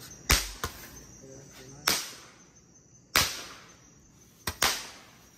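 A handheld Roman candle firing: about six sharp pops at uneven intervals, each fading quickly, two of them close together near the end.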